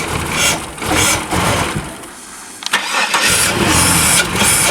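Car engine running roughly and misfiring, dropping away for a moment about two seconds in and then picking up again: half its spark plug leads are off and the intake is disconnected from the MAF sensor.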